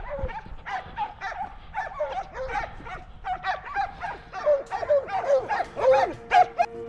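Hunting dogs barking rapidly and without pause, short falling barks several a second, loudest near the end. They are baying at a wild boar they have stopped.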